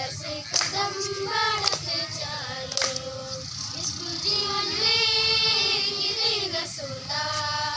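Girls' voices singing a dance song in long held notes, with a sharp beat about once a second.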